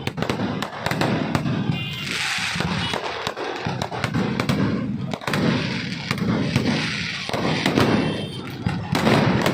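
Aerial firework shells (sky bombs) going off in a dense barrage: many sharp bangs and crackles over continuous rumbling, with a hissing burst about two seconds in.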